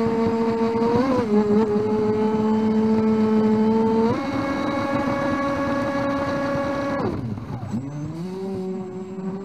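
Electric whine of the Volantex Vector 70 RC racing boat's 1800 kV brushless motor running at speed, picked up by a camera mounted on the hull. The pitch steps up a couple of times, falls away sharply about seven seconds in, then climbs back.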